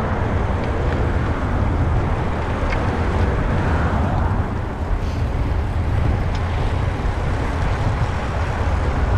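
Steady wind rushing and buffeting on the microphone of a moving bicycle, a low rumbling noise with no distinct events.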